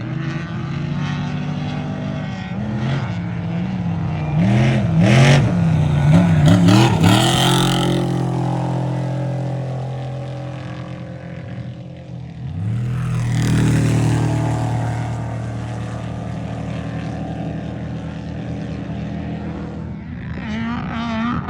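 Off-road race truck engines at full throttle, the revs rising and falling quickly a few seconds in as the truck works over rough ground. Another loud truck engine comes up about midway, and the revs waver again near the end.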